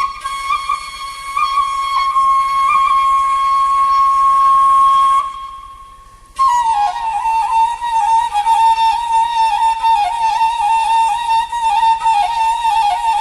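Solo flute playing in traditional Sumatran music. It holds one long note for about five seconds, breaks off briefly, then plays a slightly lower phrase full of quick ornamental turns.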